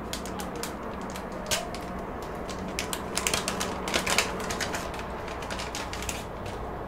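Crinkling and crackling of a sealed clear plastic filter pouch being peeled open and handled, in quick irregular clicks that are densest about three to four seconds in.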